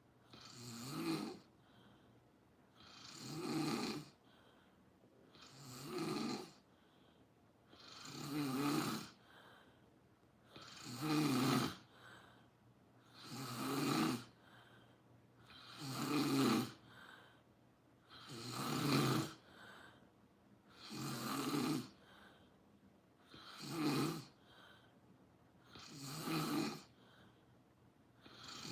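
Someone asleep and snoring steadily, one snore about every two and a half seconds, each lasting about a second.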